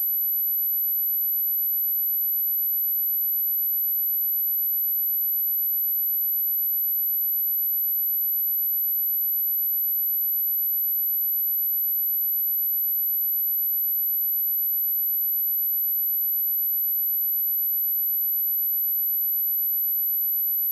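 Steady, high-pitched pure sine tone at 11927 Hz, unbroken and constant in level, used as a speaker test and speaker-cleaning tone.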